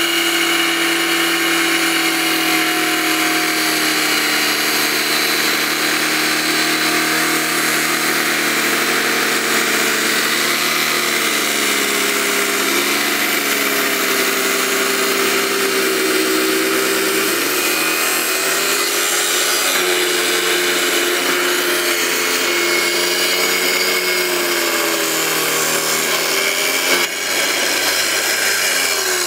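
Wet tile saw with a 7-inch blade cutting through iron-bearing epidote rock: a steady motor whine with a high grinding hiss. The pitch sags twice in the middle as the rock is pushed into the blade, then recovers.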